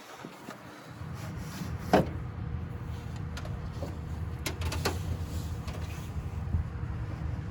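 A few sharp clicks and knocks from the old hood release cable and its plastic retaining clips being worked loose in the engine bay, the loudest about two seconds in, over a low steady rumble.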